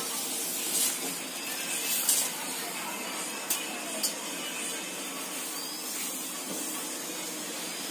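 Steady hiss of spinach leaves blanching in hot water in a steel bowl on a gas stove. Two light clicks come about half a second apart midway through, from the steel ladle and bowl.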